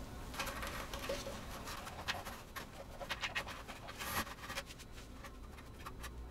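Sponge damping material being pulled out of a wooden speaker cabinet by gloved hands: irregular rustling and scratching as the foam rubs against the inside of the box.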